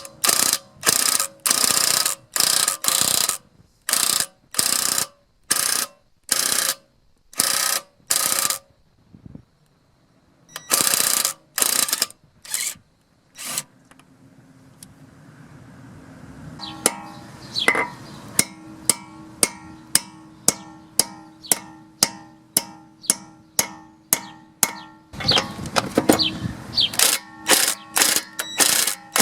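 Ryobi P261 18V cordless 1/2-inch impact wrench hammering in short trigger bursts on a socket driven onto a Honda wheel locknut, working the locknut loose. A stretch of regular clicking, about two a second, follows. Near the end comes a longer run of the wrench.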